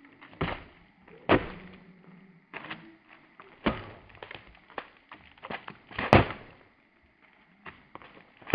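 A hand-forged longsword chopping repeatedly into a watermelon: a quick series of sharp, wet hits and thuds as chunks are cut off and fall, the loudest strike about six seconds in.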